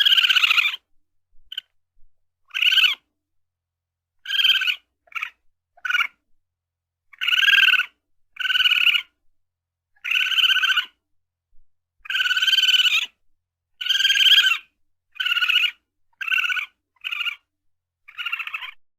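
Raccoon calling in a series of more than a dozen short, high, trilling calls, each lasting under a second, with silent gaps between them.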